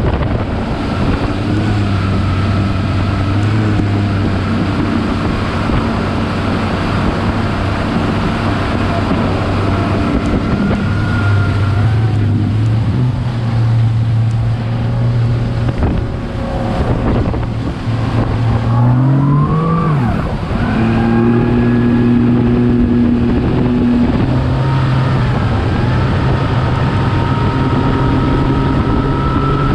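Bass boat's 300 hp outboard running at high speed over open water, with wind on the microphone and the hull rushing through the chop. About two-thirds of the way through, the engine's pitch climbs sharply, drops back, and then holds steady.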